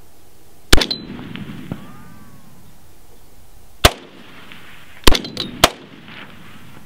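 Rifle shots: four sharp cracks, the first about a second in, then one near the middle, then two about half a second apart near the end, with a couple of fainter pops among them.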